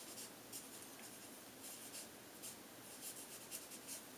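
Marker pen writing on a flip-chart paper pad: faint, irregular short scratchy strokes.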